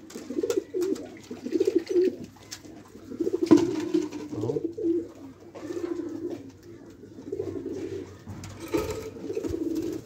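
Doves cooing repeatedly, a series of low, pulsing coo phrases one after another, with a brief knock about three and a half seconds in.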